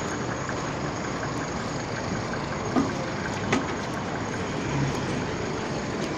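Busy street ambience: a steady hum of road traffic and running vehicle engines, with two short knocks a little under a second apart about halfway through.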